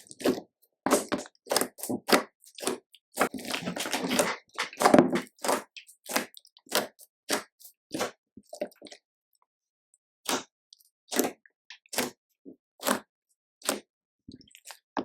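Slime being squeezed and pressed by hand: a run of short, sticky squishes and pops, one or two a second, with a denser stretch of squelching a few seconds in.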